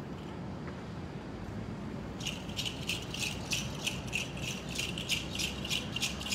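A hand rattle being shaken in a steady rhythm, about four shakes a second, starting about two seconds in.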